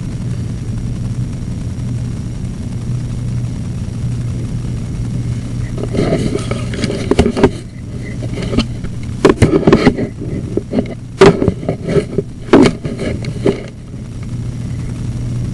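Sewer inspection camera gear with a steady low hum. From about six seconds in until near the end there is an irregular run of sharp knocks and rattles.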